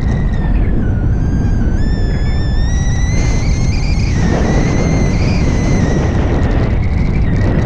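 Airflow buffeting the camera microphone in flight on a paraglider, a steady heavy rumble. Over it runs a thin, high whistle that wavers up and down in pitch.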